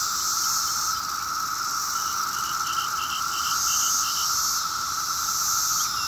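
Chorus of Brood X 17-year periodical cicadas: a steady, unbroken drone from many insects at once, with a higher hiss that swells and fades. A quick run of short high chirps comes about two seconds in and lasts about two seconds.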